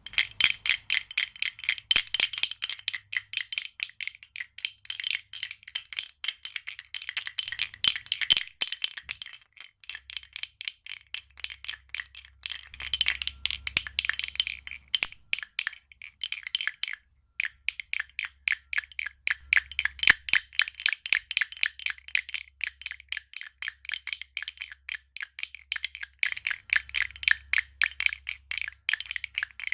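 Chimes tinkling: many light, rapid strikes a second, each ringing at the same few high pitches, with two brief lulls partway through.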